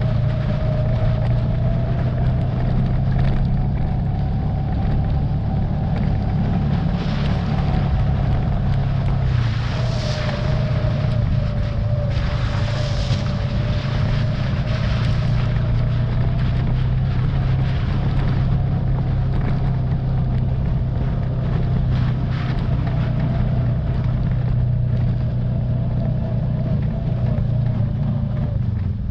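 Motor vehicle engine running steadily with a low hum, its pitch drifting slightly up and down.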